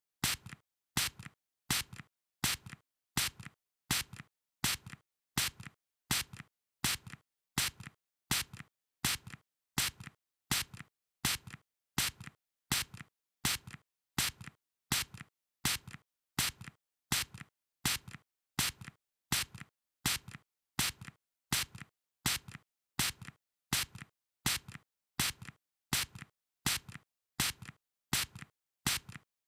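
A spray squirted in short, quick bursts, about one a second, each a faint puff followed at once by a louder one.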